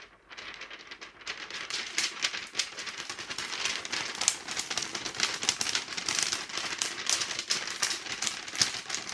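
An ordinary sheet of paper shaken in the hands, making a fast crackling rattle, quieter at first and louder from about a second and a half in; a home-made lightning sound effect. It stops just at the end.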